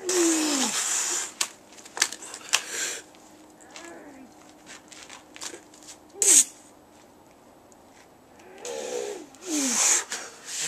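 A strongman's forceful exhales and strained grunts while lifting a 342 lb atlas stone. They come in short loud bursts: right at the start, around two seconds in, once around six seconds, and again near the end.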